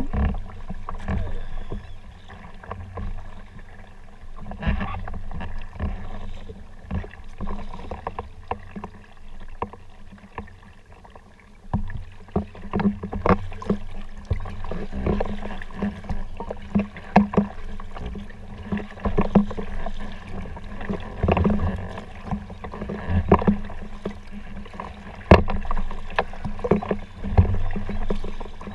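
Kayak paddling: the paddle blades splashing into the water stroke after stroke, with water dripping and irregular sharp knocks, getting louder and more regular in the second half.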